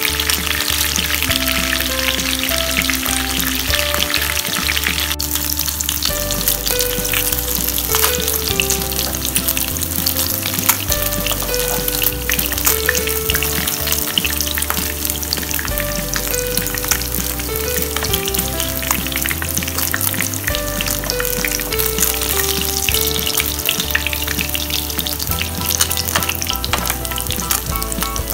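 Chicken wings frying in shallow oil in a nonstick pan: a steady sizzle and crackle of hot oil. Background music with a simple melody and bass line plays underneath.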